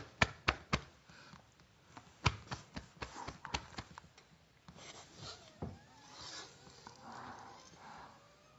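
A person's quiet, near-silent laughter: a run of quick clicking gasps, then a few soft breathy wheezes.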